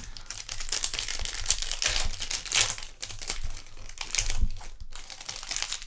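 Crinkling of a plastic trading-card pack wrapper being handled, a dense run of irregular crackles.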